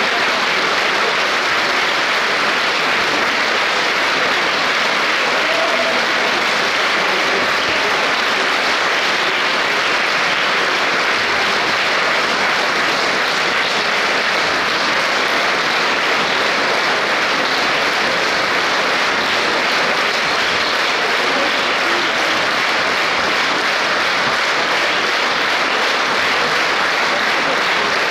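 Large concert-hall audience applauding steadily, a dense, unbroken clapping that holds the same level throughout.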